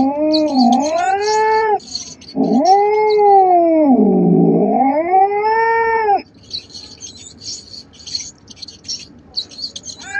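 A cat caterwauling: two long, drawn-out yowls, each rising and then falling in pitch, the second about four seconds long. The yowls stop a little past the middle, leaving a faint high, rapid chirping that runs behind throughout.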